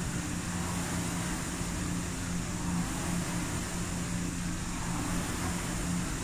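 Concept2 rowing machine's air-resistance fan flywheel whirring steadily under continuous rowing strokes, with a steady low hum.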